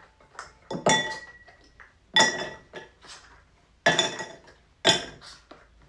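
Ice cubes dropped one at a time into a stemmed glass holding a little liquid, clinking against the glass with a short ring. About five clinks, roughly a second apart, the first one faint.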